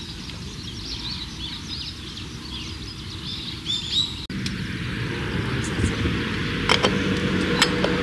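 Small birds chirping over outdoor ambience. Just after four seconds the sound cuts out abruptly and a steadier noise with a faint low hum follows, with two sharp clicks near the end.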